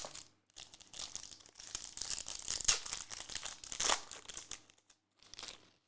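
Plastic wrapping of a trading-card pack crinkling and tearing as it is opened by hand, in a run of rustling lasting about four seconds, then one short crinkle near the end.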